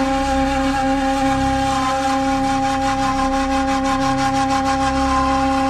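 A single long musical note, held steady in pitch, over a low pulsing backing track.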